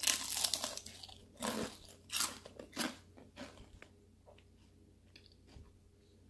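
A person biting into and chewing a crisp deep-fried battered bottle gourd fritter. A loud crunch comes at the first bite, then a few more crunching chews over the next three seconds that fade into soft chewing. The crunch is the sign that the fritter is fried crisp.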